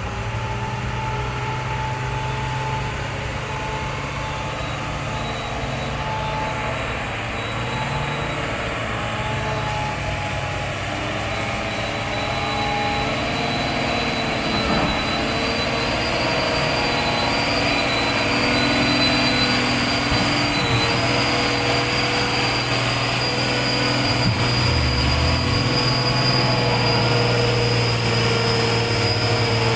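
Hino 500 FM 260 JD dump truck's six-cylinder diesel engine running hard and steady under load as the loaded truck struggles through slippery red clay. A thin high whine runs above it, and it grows a little louder about halfway through.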